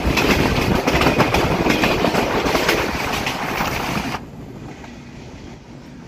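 Train wheels clattering over the rails with rushing air, heard from beside a fast-moving intercity passenger coach. About four seconds in, the sound drops abruptly to a much quieter steady rumble.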